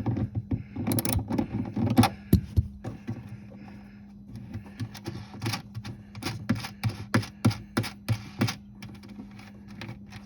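Irregular clicking and knocking of a hand tool undoing the 8 mm fasteners that hold a tail light unit, with plastic parts being handled, over a steady low hum.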